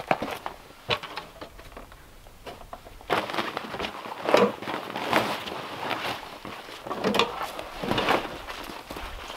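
A few faint knocks, then from about three seconds in, repeated rustling and crunching as a heavy fabric cover is pulled and tucked over a load in a plastic sled on snow.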